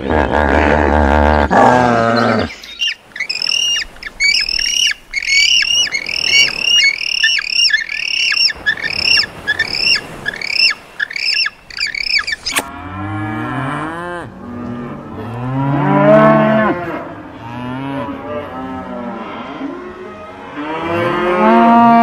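A short low animal call, then a quick series of high, repeated bird calls at about two a second. About halfway through a cut brings several long, low moos from cattle, each rising and falling in pitch.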